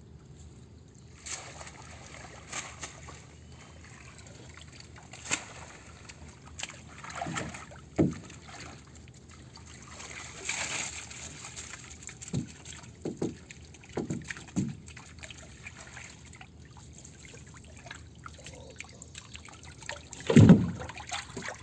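Water dripping and sloshing as a wet mesh bag of live shrimp is hauled up and emptied into a fibreglass boat's hull, with a splash of water about halfway through. Scattered knocks and thumps on the hull, the loudest near the end.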